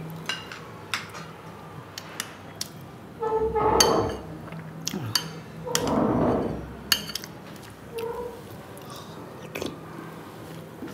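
A person eating a vegetable curry by hand from a bowl: chewing and mouth sounds, scattered light clicks and clinks from the bowl and plate, and two louder noises about a second long in the middle, over a faint steady hum.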